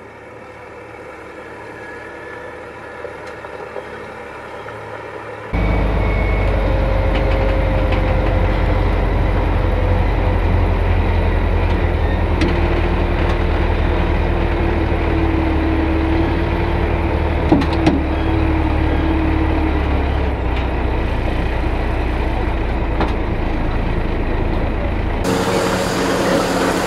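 Logging truck's diesel engine, first growing steadily louder over a few seconds, then after a sudden cut heard loud and close-up, with a deep rumble and a steady whine above it as it crawls along under load. Two sharp knocks come about two-thirds of the way through.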